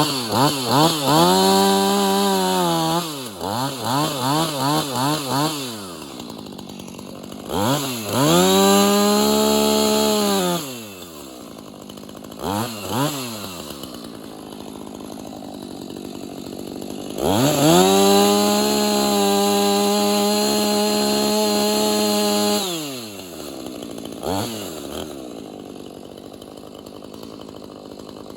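Husqvarna 450e Rancher two-stroke chainsaw: idling, blipped up and down in quick throttle pulls at first, then held at high revs for about three seconds and later for about five seconds, dropping back to idle each time, with another short blip near the end.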